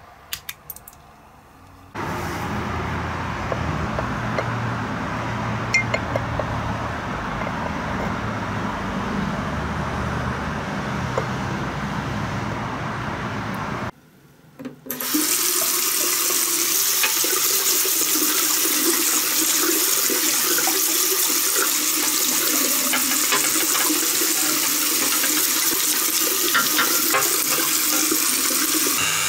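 A few light clicks, then tap water running steadily into a bathtub. Near the middle it breaks off for about a second and comes back brighter and hissier, as the diecast car body is rinsed and scrubbed under the stream.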